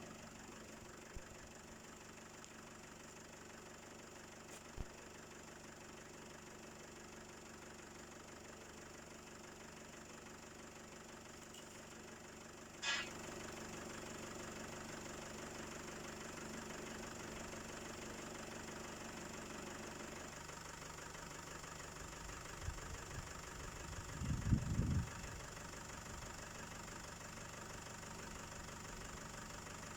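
A vehicle engine running steadily at idle. About 13 seconds in a click is followed by a slightly louder running, and a few low thumps come between about 22 and 25 seconds.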